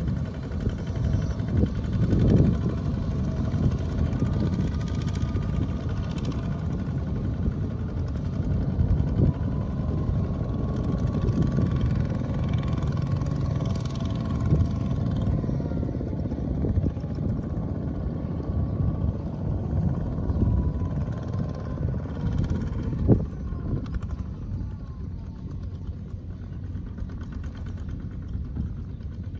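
Kubota ZT155 Plus single-cylinder diesel engines of two-wheel tractors chugging steadily as they haul trailers of rice sacks, with a few sharp knocks along the way.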